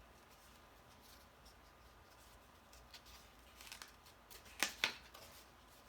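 Cardstock being handled: faint rustling and small clicks, then two sharp clicks in quick succession near the end.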